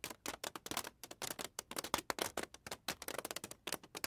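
Rapid, irregular clicking of a computer keyboard being typed on, several keystrokes a second.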